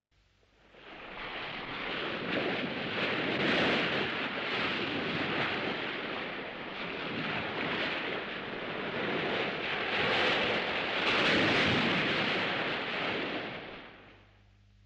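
Ocean waves rushing and crashing, swelling and ebbing. They fade in at the start, are loudest a few seconds in and again about eleven seconds in, and die away near the end.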